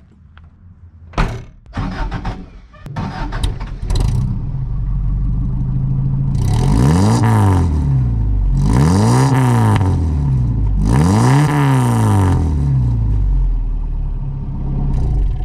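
A car engine starting with a few clicks and clatters, then running loudly and revved three times, each rev rising and falling smoothly over about two seconds.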